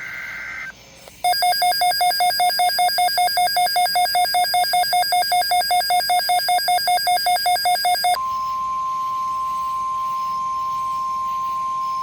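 Emergency Alert System tones on NOAA Weather Radio. The last short burst of the warbling data header comes first, then rapid electronic beeping at about four beeps a second for roughly seven seconds. About eight seconds in, the steady 1050 Hz weather radio warning alarm tone starts.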